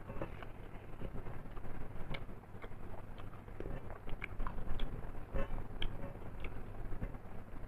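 A person chewing and eating mutton curry with rice: irregular wet smacks and small clicks of chewing, several a second.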